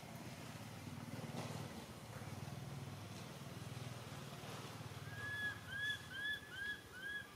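A low hum, then from about five seconds in a run of six short high-pitched animal calls, each an arched chirp, about two a second.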